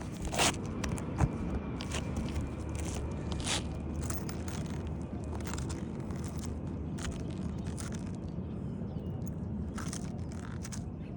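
Asphalt roof shingles scraping and crackling as they are lifted and worked during a shingle repair, with scattered sharp clicks.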